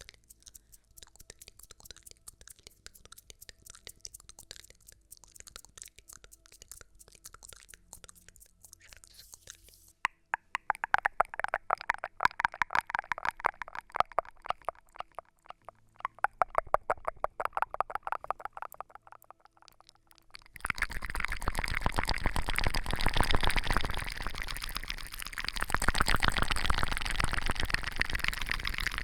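Close-miked ASMR trigger sounds: faint rapid clicking that turns louder and brighter about ten seconds in, then from about twenty seconds in a louder, dense rustling that runs on.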